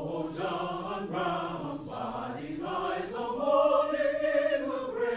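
Slow vocal music: singing voices holding long notes, stepping from pitch to pitch, with no instruments standing out.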